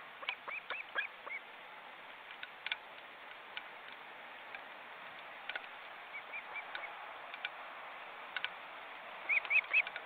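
Ospreys calling from the nest in series of short, whistled chirps. There is a run of about five in the first second and a half, a softer run of four about six seconds in, and three louder ones near the end. Faint scattered ticks come in between.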